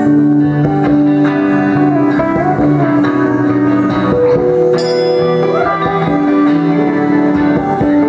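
Live rock band playing an instrumental passage, with an electric guitar prominent. It plays long held notes with a few bends.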